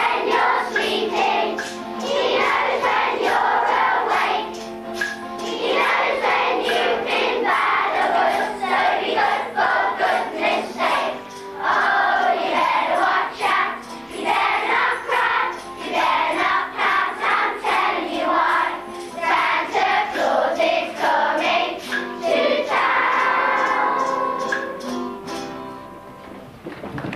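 A children's choir singing a song with musical accompaniment; the song dies away near the end.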